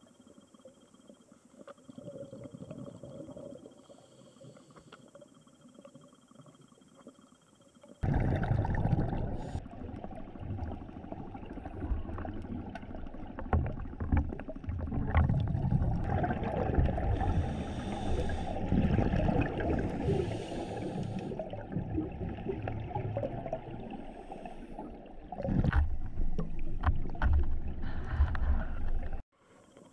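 Muffled underwater rumble with many small knocks and surges, picked up through a diving camera's housing. It starts suddenly about eight seconds in and stops abruptly just before the end; before it there is only a faint hum.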